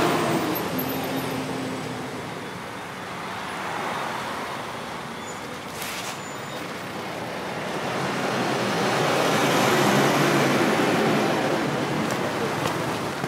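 Street traffic noise from buses and cars passing. It eases off after the first couple of seconds and swells again as another vehicle draws near about ten seconds in, with a brief sharp sound about six seconds in.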